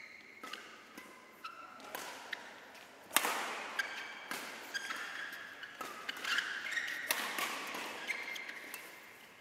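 Badminton rally: a series of sharp racket-on-shuttlecock hits, with one much harder strike about three seconds in, and short squeaks of court shoes on the mat between the shots.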